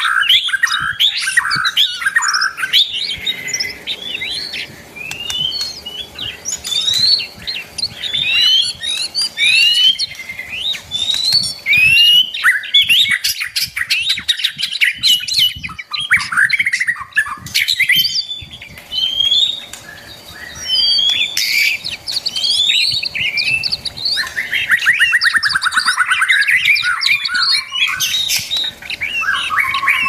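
Several songbirds in an aviary chirping and calling over one another in quick rising and falling whistled notes. A harsh, buzzy rasping call comes in a few seconds before the end.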